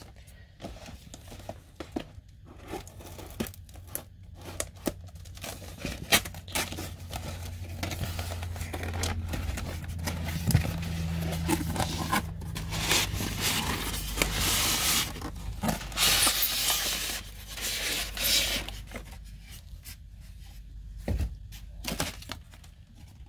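Cardboard box being opened by hand: tearing, scraping and rustling of the cardboard and packaging in irregular bursts, with a longer stretch of scraping about halfway through.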